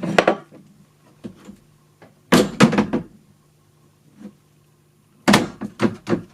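Foley recreation of an old village door: a cluster of bangs and rattles about two seconds in, then a run of quick knocks near the end.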